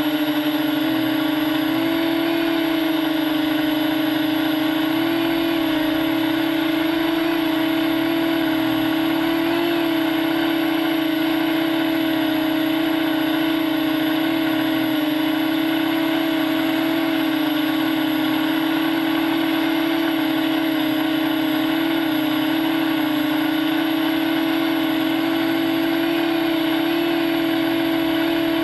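Quadcopter's electric motors and propellers whining steadily, heard close up from a camera mounted on the drone itself, the pitch wavering slightly as the drone flies and turns.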